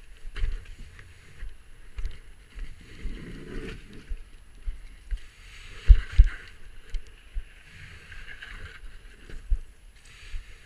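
Irregular footfalls and knocks on granite and sand during a kayak portage, over a steady rush of white water from the nearby rapid; the heaviest knocks come about six seconds in.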